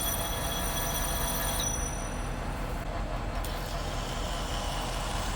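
Lathe turning the outside diameter of a steel drive plate with a carbide insert: the steady running of the machine and cut, with a high-pitched metallic ringing squeal from the cut for the first second and a half and again, fainter, in the second half.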